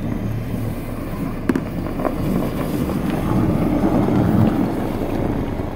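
A car engine running as the car draws up, the rumble growing louder in the middle, with two sharp clicks about one and a half and two seconds in.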